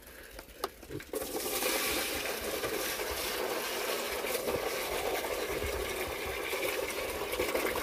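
Whey poured from a bucket into a shallow pig trough: a steady splashing pour that starts about a second in.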